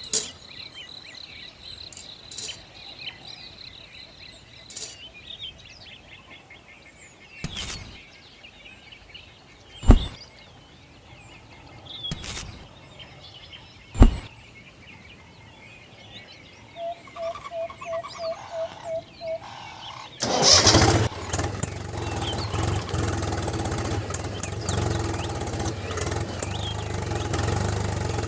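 Birds chirp over a quiet background, broken by a few sharp knocks. Near the end, a short run of even pulses leads into a small engine starting about twenty seconds in, which then runs steadily.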